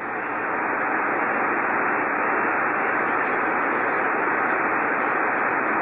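Steady hiss of 75-meter band noise from a Yaesu FT-1000MP Mark-V HF transceiver receiving lower sideband, heard as static on the open frequency between stations' transmissions. It swells slightly in the first second, then holds even.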